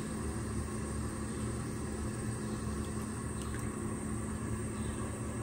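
Steady low rumble with a faint even hum from the running kitchen stove area. A couple of faint light clicks come about three seconds in.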